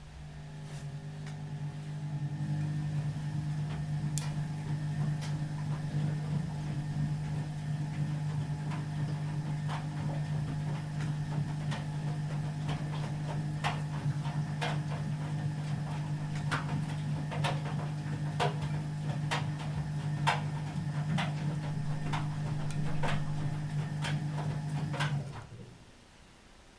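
Newly fitted drain pump of an Ardo washing machine running with a steady low hum, with irregular sharp clicks over it. It builds up over the first couple of seconds and cuts off suddenly near the end.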